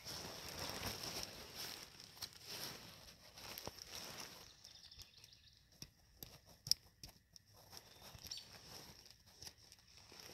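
Faint rustling and crinkling of the nylon fabric of an inflatable air lounger as it is handled and rolled down, with a few sharp clicks about two-thirds of the way in.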